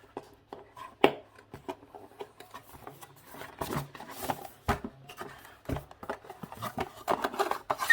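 Hands handling a cardboard box and its packing: scattered taps, knocks and rustles, with a sharp knock about a second in and busier handling near the end.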